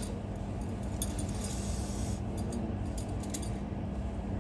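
Indian Railways passenger train heard from inside the coach as it pulls slowly out of a station: a steady low rumble with a constant hum, and scattered light clinks and rattles from the coach.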